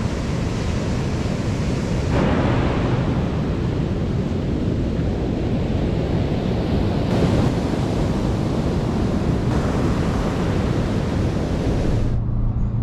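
Ocean surf washing onto a sandy beach, with wind rushing on the microphone, as a steady dense noise. Near the end it cuts to the low, steady hum of a car running, heard from inside the cabin.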